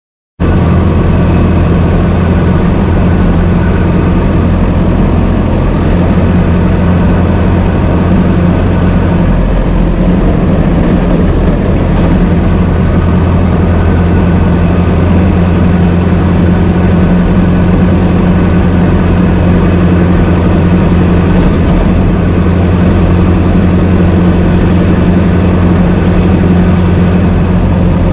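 Old car engine running steadily at an even, low speed, with no revving. It comes in abruptly about half a second in.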